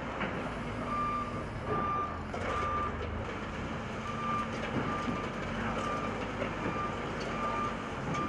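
Backhoe loader's reversing alarm beeping, a single short tone repeating a little faster than once a second with a brief pause a few seconds in, over the steady rumble of its engine.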